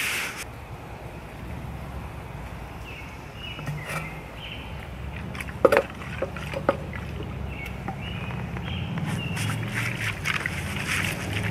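Melted paraffin wax sloshing inside a hollow dried gourd as it is swirled and tilted to coat the inside walls, with a couple of sharp knocks a little over halfway through.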